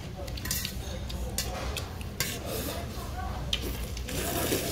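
Chopsticks stirring, clinking and scraping in a stainless steel noodle bowl, with scattered short clicks.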